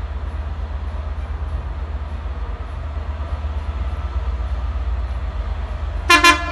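Class 67 diesel locomotive approaching, a low rumble slowly growing, then two quick toots of its horn close together near the end.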